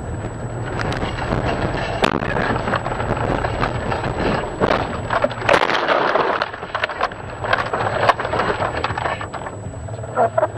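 Car cabin noise as the car slides off a snowy road and ploughs into deep snow: a steady low drone with knocks, then a loud rush of snow and ice hitting the bodywork and windshield about five and a half seconds in, followed by scattered thumps and a clatter near the end.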